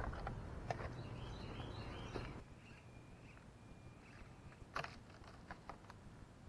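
Faint clicks and light knocks from an Axial SCX24 1/24-scale RC crawler's tyres and plastic chassis working over a rotten wooden log, mostly about five seconds in. Quiet outdoor ambience lies under them, with a bird chirping about two seconds in.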